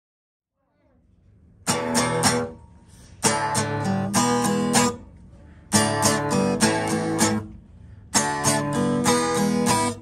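Strummed acoustic guitar music beginning about two seconds in, playing four short chordal phrases with brief pauses between them.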